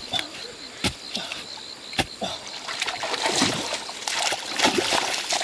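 Three sharp knocks in the first two seconds as a wooden pole is jabbed into a mud bank, then shallow muddy water splashing and sloshing as it is kicked and churned.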